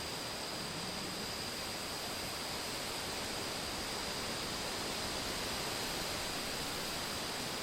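Steady, even rushing noise of a fall ambience background-noise track, with a thin steady high tone above it and no distinct events.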